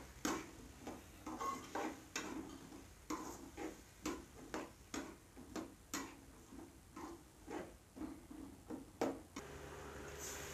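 Slotted steel spoon stirring potatoes and peas in an aluminium pot, clinking and scraping against the metal about twice a second. Near the end the clinking stops and water is poured into the pot with a steady splashing hiss.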